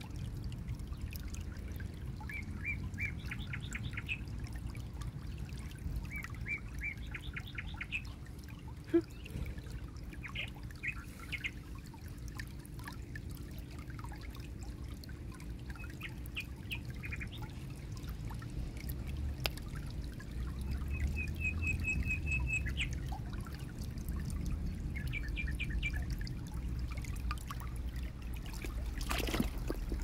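Shallow creek trickling over pebbles, with a bird giving short fast trills of chirps every few seconds.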